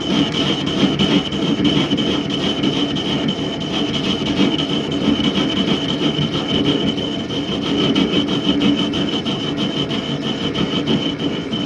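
Mini lathe running with a steady motor whine while a cutting tool scrapes metal from the tailstock base in a continuous cut.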